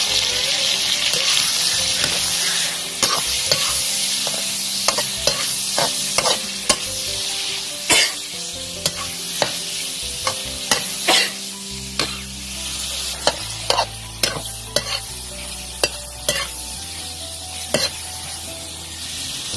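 Pork and shrimp stir-frying in a hot metal wok: a steady sizzle, with a metal spatula repeatedly clinking and scraping against the pan as the food is turned.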